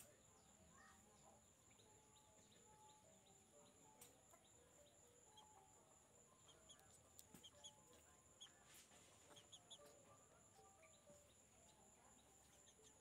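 Faint cheeping of a young chicken: short high peeps scattered through, thickest in the middle stretch, over a steady high-pitched whine.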